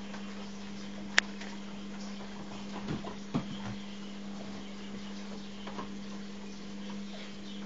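A steady low hum, with a single sharp click about a second in and two dull knocks around three seconds in.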